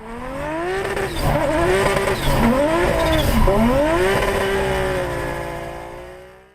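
Drift car engine held at high revs through a slide, with tyre squeal: the revs climb, dip sharply twice and pick up again, then hold steady as the sound grows fainter near the end.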